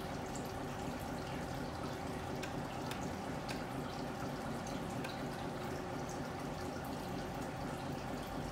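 RC truck's electronic sound unit playing a steady diesel engine idle through its small speaker, with faint ticking.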